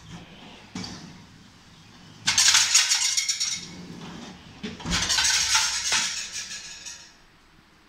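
Pull-out stainless steel wire plate basket on drawer runners sliding out, its wires and the glass plates rattling, then rattling again as it is pushed shut with a knock about five seconds in.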